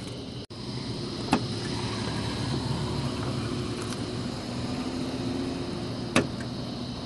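Drink vending machine's steady motor hum, with a sharp click about a second in and another near the end, as a dollar bill is fed into it.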